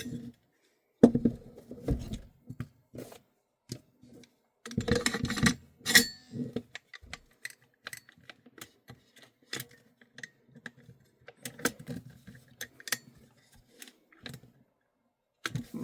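Metal airsoft rifle receiver parts clicking and clacking as a Double Eagle upper receiver is fitted onto a Tokyo Marui MWS lower. Two busier bursts of knocks come about a second in and about five seconds in, then scattered light clicks.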